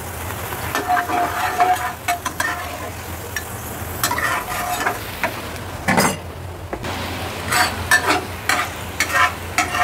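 Metal ladle scraping and clinking against a steel wok while sauce sizzles in the hot pan, which has nearly run dry. A brief louder burst comes about six seconds in, over a steady low hum.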